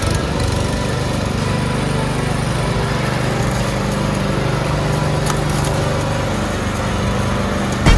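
Masport petrol rotary lawn mower running steadily as it is pushed across grass. A single sharp knock sounds near the end.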